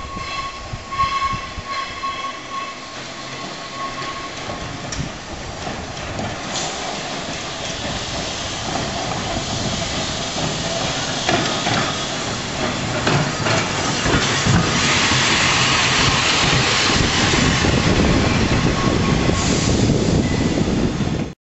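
Manx Electric Railway crossbench tramcar and trailer approaching and passing close by. A held whistle note dies away in the first few seconds. Then the rumble of steel wheels on rail builds, with clicks over the rail joints, and is loudest as the cars go past. The sound cuts off suddenly near the end.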